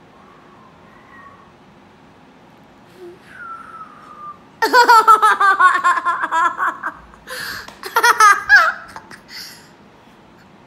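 A young child's whistle attempt, a thin tone falling slightly in pitch, followed by loud high-pitched laughter in two bursts.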